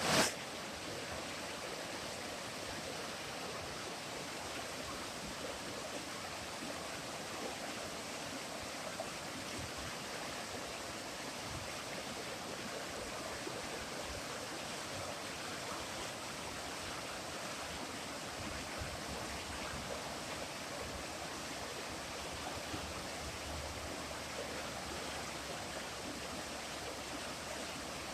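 Flowing water rushing steadily, with a brief thump at the very start.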